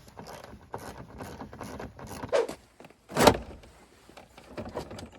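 Hand work on a pickup's door panel: small clicks and taps as bolts are worked out, then a loud, short clunk a little over three seconds in.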